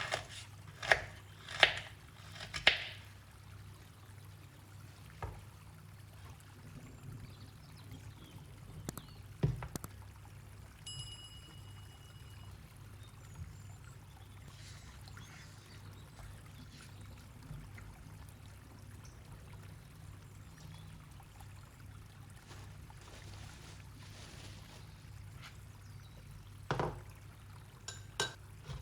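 Kitchen sounds of making a homemade tea: liquid being poured, with several sharp clinks and knocks in the first few seconds and a couple more later. A steady high tone sounds for about a second and a half, over a low steady hum.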